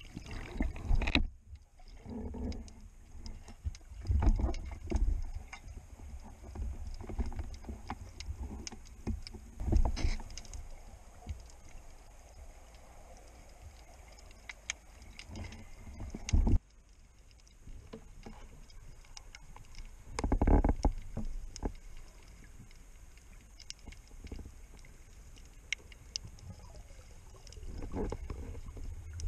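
Underwater camera audio of a spearfisher on a dive: muffled water rushing and sloshing in uneven surges, with scattered sharp clicks and knocks from the gear. One loud knock comes at a cut about halfway through.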